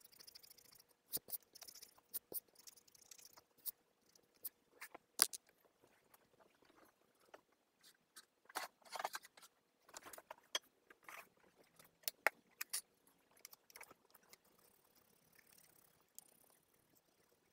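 Pen drawing on sketchbook paper: short scratchy strokes mixed with scattered light clicks and taps at an irregular pace, with a longer run of scratching about nine seconds in.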